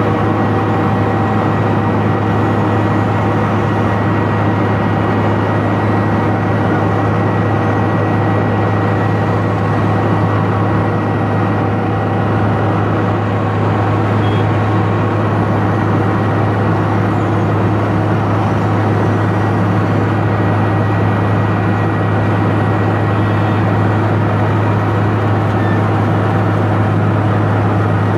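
Milling machine running steadily while cutting a rod: a loud, even low hum with a few constant higher whining tones and no breaks.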